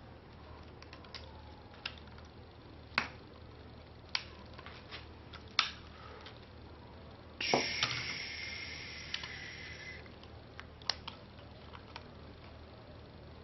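Plastic keyboard keycaps clicking and snapping as they are pressed and hooked onto their switches, a handful of sharp separate clicks. About halfway through, a louder scraping noise lasts two to three seconds.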